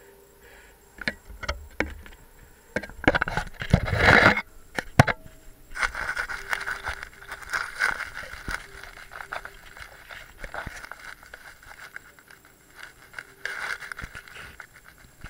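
Camera handling noise: the action camera bumping and scraping against wood and substrate as it is moved around inside the enclosure. A few clicks come first, then a loud rustling scrape about three seconds in, then a long stretch of rubbing and scraping.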